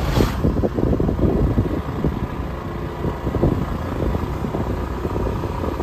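Wind buffeting the microphone over the steady low running of a motorbike engine, as heard while riding on it.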